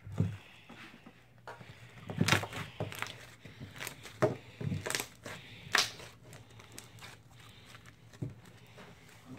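Crunchy homemade slime being squeezed and pulled by hand, giving irregular crackling with several sharp pops, the loudest spread over the first six seconds.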